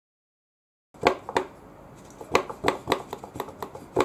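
Plastic drink bottle upended on a hose, draining tyre softener into a tyre: a run of irregular sharp pops and clicks from the bottle as the liquid runs out, starting about a second in.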